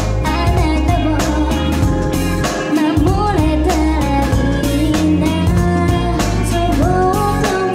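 A female pop singer sings into a handheld microphone over a backing track with a steady beat, her held notes wavering with vibrato.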